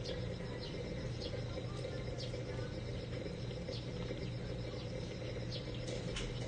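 Insects chirping steadily outdoors, a fast pulsing high trill with short high chirps scattered through it, over a steady low hum.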